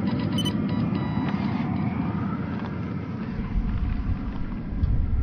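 Traxxas TRX-4 RC crawler's stock brushed electric motor and geared drivetrain running as the truck drives over rough ground, a steady whir with a deeper rumble in the last couple of seconds.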